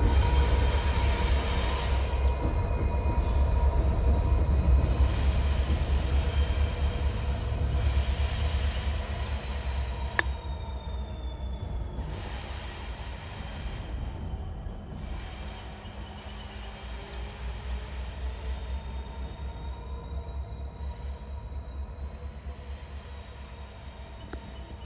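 EMD SD60E diesel-electric locomotive, with a 16-cylinder EMD 710 two-stroke diesel, running light across a deck girder bridge. Its deep engine and wheel rumble fades steadily as it moves away, over a thin steady squeal of wheels against the rail. There is one sharp click about ten seconds in.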